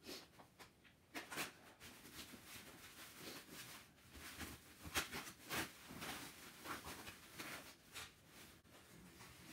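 Rustling and crinkling of a white wrapping sheet and a padded gig bag being handled as a guitar is unpacked, in irregular scrapes with a few louder rustles about a second in and around the middle.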